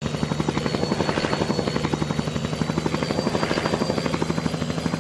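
Helicopter running steadily, its rotor blades beating a fast even chop over a steady engine hum and a faint high whine.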